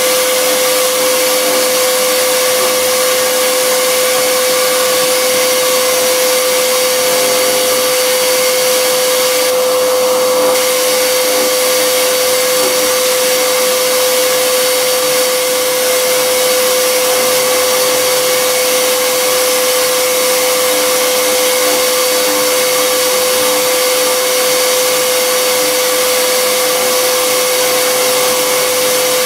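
A 14-gallon, 6 hp shop vac running steadily, with a small CNC router spindle milling a wooden board inside a closed enclosure. There is a constant hum under the rushing air.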